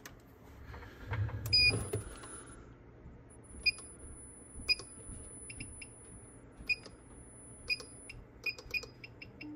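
Signal generator's front-panel buttons beeping as they are pressed: about a dozen short, same-pitched beeps at irregular intervals, some in quick runs near the end. A soft knock of handling comes about a second and a half in.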